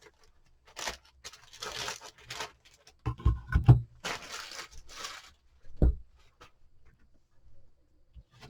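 Packaging being torn and rustled open off a wooden cutting board, in several short spells. A cluster of loud knocks about three to four seconds in and another about two seconds later are the board being handled and set down.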